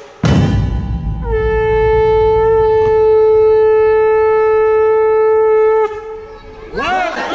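Conch shell (shankh) blown in one long, steady, loud note of about four and a half seconds, bending up into pitch as it starts and cutting off sharply. A low boom fades at the start, and a crowd starts shouting near the end.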